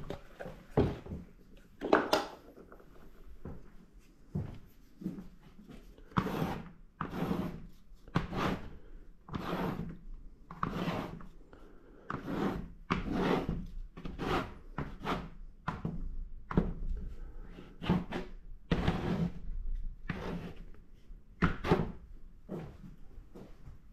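Flat metal painting knife scraping acrylic paint across paper, a long run of short rasping strokes, more than one a second from about six seconds in.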